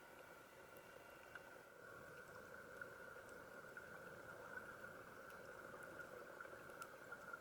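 Near silence, recorded underwater: a faint steady hum with a few faint scattered clicks.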